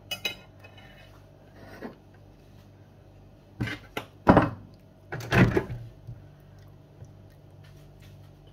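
Kitchen handling sounds: a short clink at the start, then a run of knocks and clatters of dishes between about three and a half and six seconds in, the loudest a little past four seconds, over a steady low hum.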